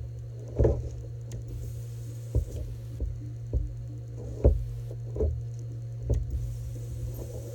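Ultrasonic welder gun tacking spot welds along the edge of a woven poly egg belt: six short thumps about a second apart as the tip is set down and fired at each spot, over a steady low hum.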